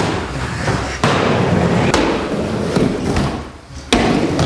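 Skateboard rolling on a hard indoor floor, with sharp board slaps about one second in, two seconds in and again near the end.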